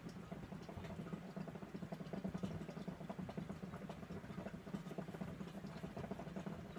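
Hookah water bubbling in a fast, steady gurgle as smoke is drawn through the hose.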